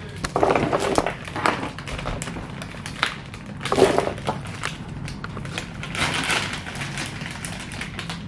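Clear plastic packaging crinkling and rustling as bags of disposable gloves are handled, in three main bursts: near the start, about four seconds in, and about six seconds in.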